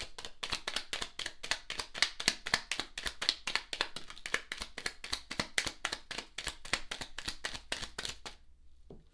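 Tarot deck being shuffled by hand: a quick, even run of cards slapping together, about five a second, that stops about eight seconds in.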